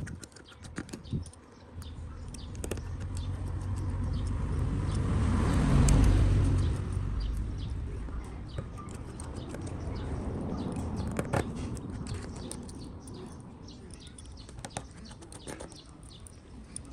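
A passing road vehicle: a low rumble swells to a peak about six seconds in and then fades, with small scattered clicks over it.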